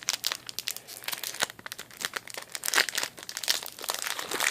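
Foil booster-pack wrapper of Pokémon trading cards being torn open and crinkled by hand, a dense run of irregular crackles and rips.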